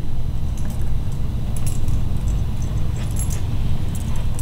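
Metal tags on a small dog's collar jingling in short, scattered bursts as the dog moves about, over a steady low rumble.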